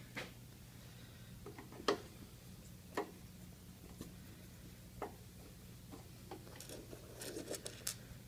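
Scattered light clicks and taps of small screws and a screwdriver being handled as panel screws are fitted, with a quick run of small clicks near the end. A steady low hum runs underneath.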